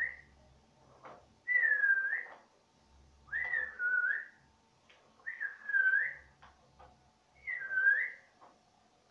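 Someone whistling the same short note over and over, about every two seconds. Each note dips in pitch and rises again.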